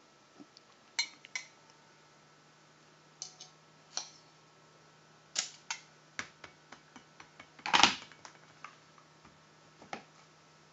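Hard parts of an airsoft RPG-7 round being handled and fitted together on a workbench: scattered clicks, taps and knocks, with a louder, slightly longer clatter near eight seconds in.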